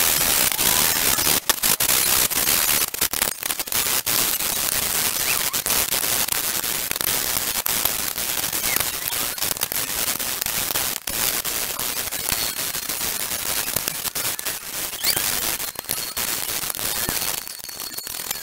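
Pine batten being smoothed by hand along its edge: a continuous scratchy rasp of abrasive or blade on wood, with brief breaks between strokes. It drops away about a second before the end.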